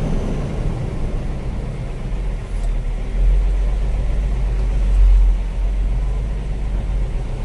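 Heavy truck's engine rumbling, heard from inside the cab as the truck drives; a deep, steady rumble that swells louder about three and five seconds in.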